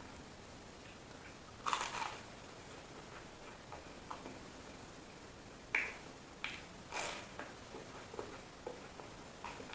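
Close-up eating sounds: scattered short, sharp smacks and crackles of food being chewed and handled, with one longer crackly burst about two seconds in and a cluster of sharper clicks a little past the middle.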